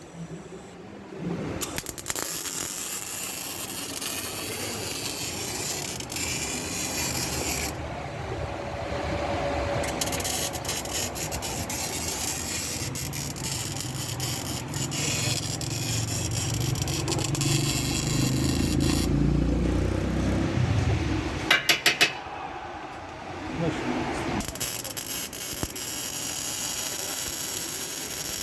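Metalwork on a car's chassis: a steady rasping, scraping noise that stops briefly a few times.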